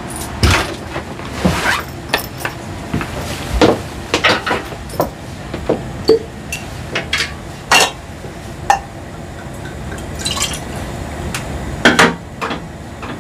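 Glass cognac bottle and a cup being handled: a string of irregular clinks and knocks, with liquid poured into the cup.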